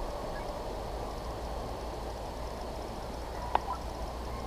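Hunting hounds baying faintly in the distance as they run a trail through the woods, with one short sharp sound about three and a half seconds in.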